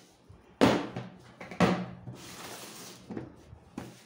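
Hard plastic tool case being opened: two sharp plastic clacks about a second apart as the latches are snapped open, then a softer rustle and a few light knocks as the lid is lifted.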